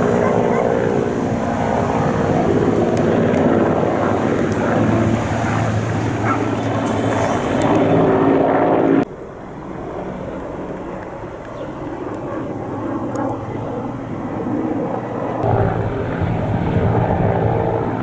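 Large firefighting helicopter flying overhead, a steady mix of rotor and engine noise. The sound drops suddenly about halfway through and grows loud again over the last few seconds.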